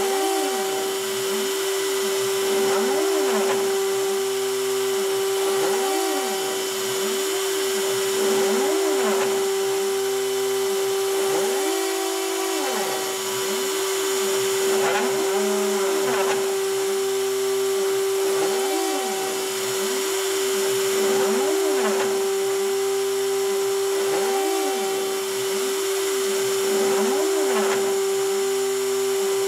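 Hobby CNC router engraving cardboard: its rotary-tool spindle runs with a steady high whine, while the axis motors' whine rises and falls in pitch about every second and a half as the gantry moves the cutter from stroke to stroke.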